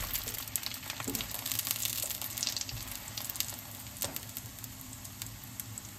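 Korean vegetable pancake frying in shallow oil in a nonstick pan, sizzling with a scatter of small pops and crackles that slowly fades. There is a light click about four seconds in.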